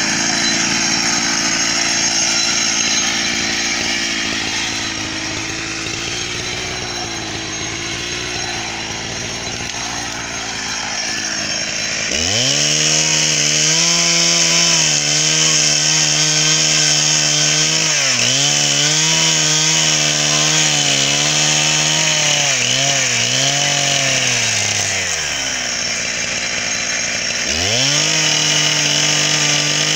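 Two-stroke chainsaw cutting into an old log, running under load in the wood at first. About twelve seconds in it jumps to a high, steady full-throttle pitch that sags briefly a few times, drops back to idle near the end, then revs up again.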